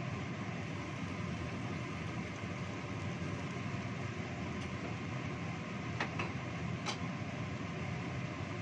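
Steady low rumble of a gas stove burner heating a wok of chicken simmering in spiced broth, with a few faint light clicks about six to seven seconds in.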